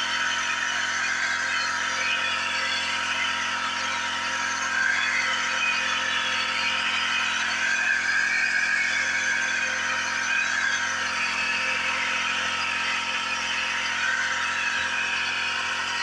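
Backpack power sprayer's small engine running steadily while the lance nozzle sprays pesticide mist.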